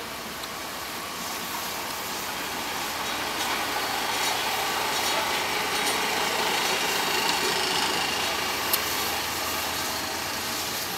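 Diesel railcar 137 322 rolling slowly past with its engine running, growing louder as it comes close. One sharp click near the end.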